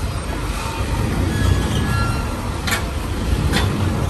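Steady low rumble of vehicle traffic, with two short sharp clicks near the end.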